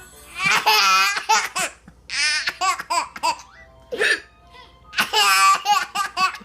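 A baby laughing in three high-pitched bouts of belly laughter, set off by an adult's hiccups; a single short hiccup sounds about four seconds in, between the second and third bouts.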